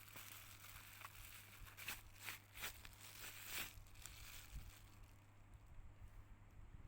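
Faint rustling and scraping from hands handling small objects, several short strokes in the first few seconds, then quieter, over a low steady hum.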